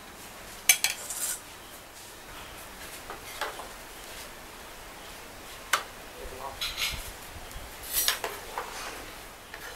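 A metal utensil clinking against a cooking pot and dishes, several sharp irregular strikes with short ringing tails.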